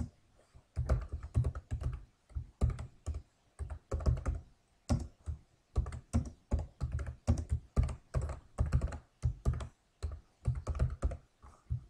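Computer keyboard being typed on, in quick runs of keystrokes with short pauses between them.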